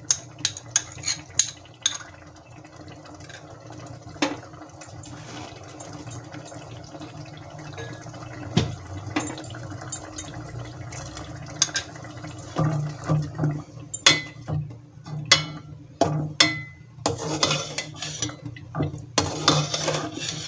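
A metal spoon clinking and scraping against a cooking pot as a thick masala paste is stirred. The strokes come in a quick run at the start, then again and more busily through the last eight seconds, over a low steady hum.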